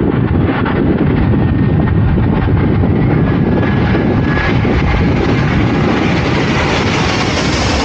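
German Air Force plane coming in to land, passing low overhead: a loud, steady rumble whose hiss grows brighter as it draws nearer.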